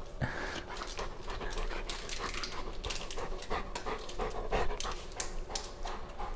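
Large Bernese mountain dog panting rapidly with its tongue out, a quick, steady run of breaths.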